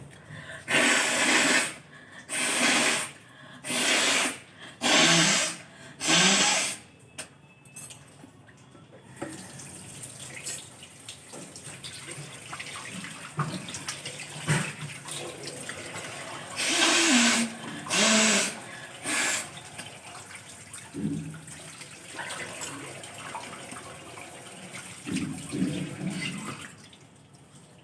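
A run of five forceful nose blows over a wash basin, each under a second, then a tap running into the basin, broken by three more short loud bursts about two thirds of the way through.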